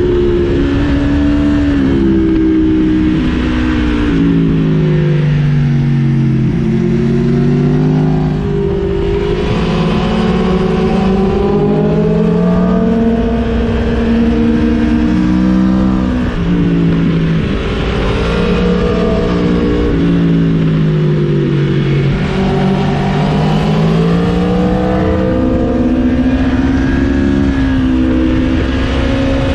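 Aprilia Tuono motorcycle engine heard from the rider's helmet, its pitch rising and falling again and again as it accelerates and backs off through the bends, over a steady rush of wind.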